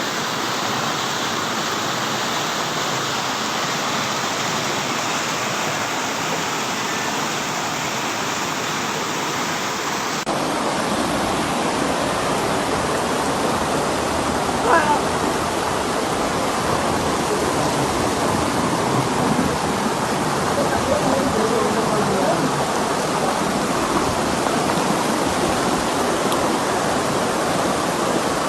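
Floodwater rushing after heavy rain: a loud, steady noise of fast-flowing water. About ten seconds in it changes abruptly, with more low rumble after the change.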